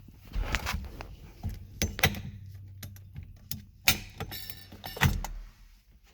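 Quick-release steering wheel being unlatched and pulled off its hub: a string of clicks and clunks, with a short metallic rattle a little past four seconds in.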